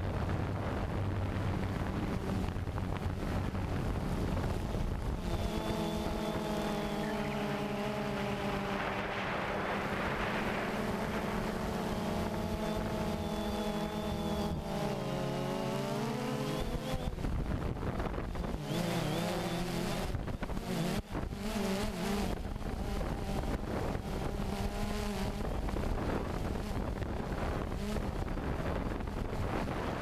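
DJI Phantom 2 quadcopter's motors and propellers buzzing, heard close up from the onboard GoPro, with wind noise on the microphone. The pitch of the motor whine shifts several times as the throttle changes.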